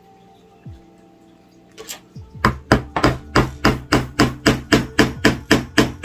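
Hammer tapping a tack into a wooden board: a fast, even run of blows, about four a second, starting a couple of seconds in.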